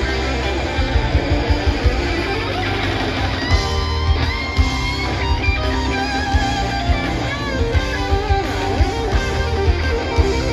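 A live rock band playing, with electric guitar over bass and drums. The guitar notes slide and waver in pitch over a steady drum beat.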